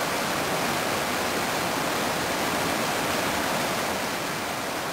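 Creek water rushing steadily over a rock ledge and down a whitewater chute.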